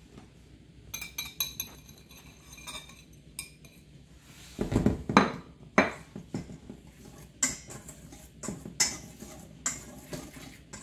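Wire whisk clinking and scraping against a stainless steel mixing bowl as dry ingredients are stirred together, with a plate tapped on the bowl's rim and ringing clinks in the first few seconds. A few loud knocks come around the middle.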